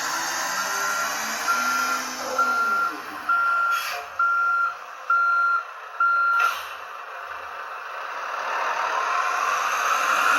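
Volvo model vehicle's electronic sound module playing a simulated reversing beep, about one beep a second, over a hiss of simulated engine noise. The beeping stops with a click about six and a half seconds in, and the hiss then swells toward the end.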